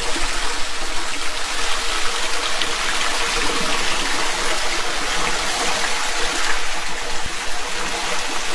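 Floodwater rushing steadily down into a cleared street storm drain.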